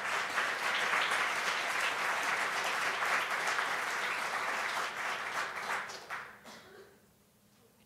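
Audience applauding an award announcement, fading out about six to seven seconds in.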